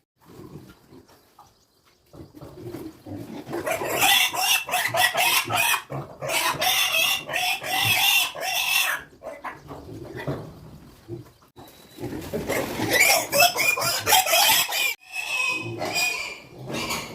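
Piglets squealing loudly and shrilly, in two long bouts: one starting a couple of seconds in, and another after a short lull past the middle.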